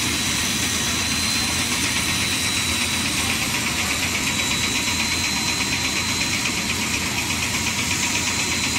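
Snack food extruder running in production: a steady mechanical noise with a thin, high whine and a fast, even pulsing throughout.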